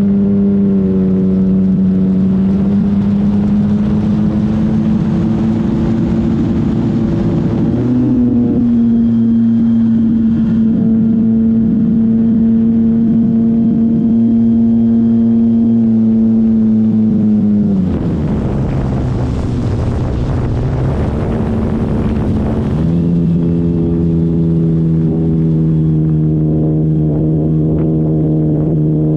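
E-flite Extra 300 RC plane's motor and propeller running as a steady pitched drone that shifts up and down with the throttle. About 18 seconds in the drone drops away under a rush of wind noise for about five seconds, then comes back at a lower pitch.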